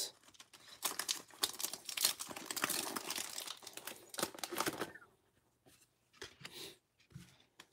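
Foil wrapper of a Pokémon TCG booster pack being torn open and crinkled for about four seconds, dying down to a few faint ticks near the end.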